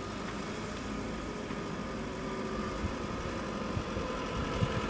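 Ford Mondeo Mk5 2.0-litre diesel engine running steadily, with a newly replaced timing chain.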